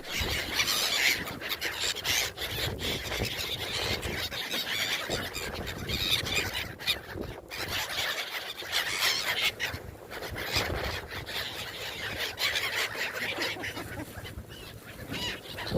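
Gulls calling and squealing over a steady rush of wind and sea.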